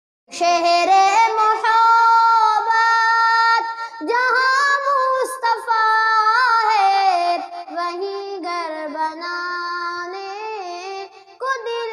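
A single high-pitched voice singing a slow melody with no instruments, holding long notes with wavering ornaments; it grows quieter about eight seconds in.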